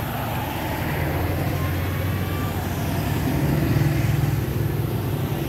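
A motor vehicle's engine running steadily, a low hum that swells a little around the middle.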